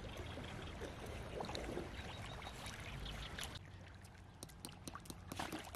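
Water sloshing and lapping around golden retrievers swimming and wading in shallow water, with a run of small splashes in the second half.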